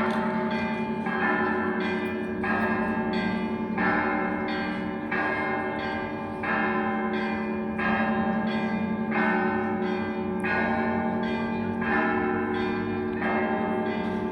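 Russian Orthodox church bells ringing in a full peal: a cluster of smaller bells struck together about every second and a quarter over the steady hum of a large bell.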